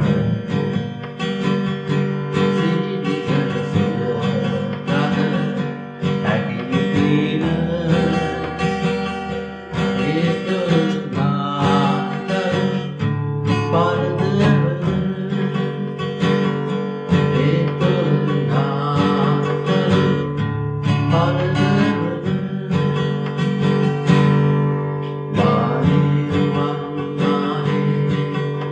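A man singing a Sinhala song to his own strummed acoustic guitar: steady rhythmic chords with the voice over them.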